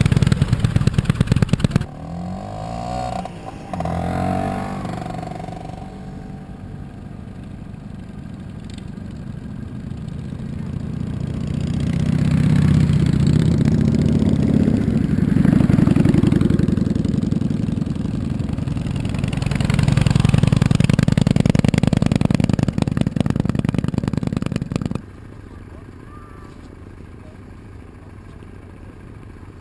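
Motorcycle engines: a loaded cruiser motorcycle runs close by at first, then motorcycles ride past on a snowy road, their engine sound swelling twice and fading. It drops suddenly to a quiet outdoor background near the end.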